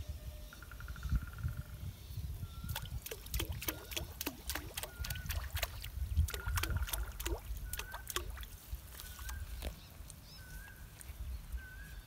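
Small animals calling: a short note repeated about once a second, a quick trill near the start and again in the middle, and a run of sharp clicking calls from about three to ten seconds in, over a low steady rumble.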